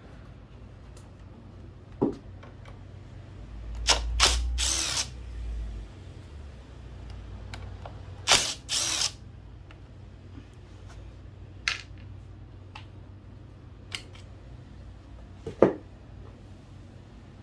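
Two short runs of a hand-held power tool, each a couple of brief bursts, about four and eight seconds in, working on a small scooter engine. Scattered clicks and knocks of tools and metal parts come between them.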